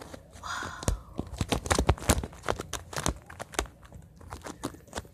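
A thin plastic-paste bubble (B'Loonies wobble bubble) being squeezed and handled close to the microphone: a run of sharp crackles and crinkles, densest in the middle and thinning out near the end.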